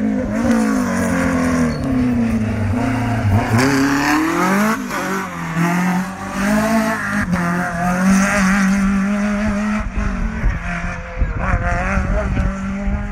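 Renault Clio rally car engine revving hard, its pitch climbing and dropping again and again through gear changes.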